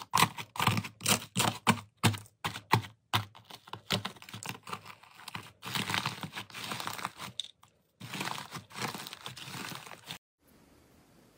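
Dried crust of pink iceberg slime cracking and crunching as fingers break it into plates and crush them into the soft slime underneath. Quick separate crackles at first, then a denser run of crackling that stops about ten seconds in.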